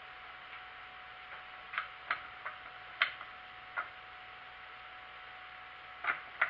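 Hand arbor press pressing a small brass gear on as an interference fit: a string of short, sharp metallic clicks, about six between two and four seconds in, then two more near the end.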